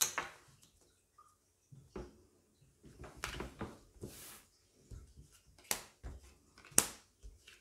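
Playing cards being slid off and laid down on a wooden tabletop: a string of short, sharp taps and soft swishes, the sharpest snap about seven seconds in.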